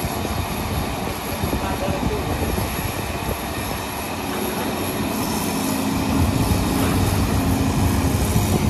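Diesel engines of heavy construction machinery working, a dense steady mechanical noise. It grows louder, with a stronger steady hum, from about six seconds in.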